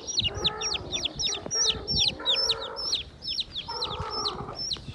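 Newly hatched chicks peeping without pause, a string of high, falling cheeps about four a second, with lower calls of adult chickens underneath.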